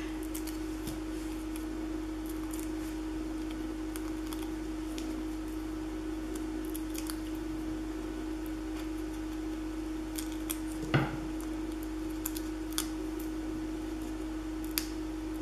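Soft clicks and rustles of foam dimensional adhesive squares being peeled from their backing and pressed onto paper cut-outs, with one sharper tap about eleven seconds in, over a steady low hum.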